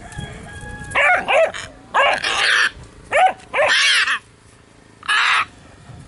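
A blue-and-gold macaw squawking harshly, mixed with a puppy's short yelps and barks, as the two play-fight. There are about six loud calls in quick succession, each under a second, and the last comes about five seconds in.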